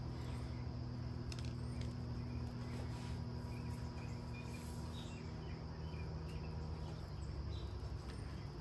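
Steady outdoor drone of insects with a low steady hum underneath, and faint light pattering of dry rub sprinkled by hand onto a raw pork butt.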